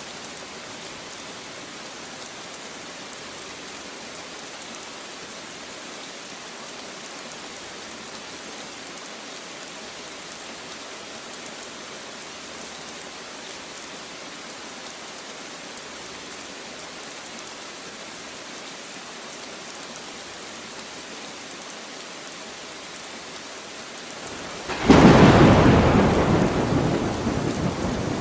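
Steady rain falling, then a sudden loud thunderclap near the end that rumbles on and slowly fades.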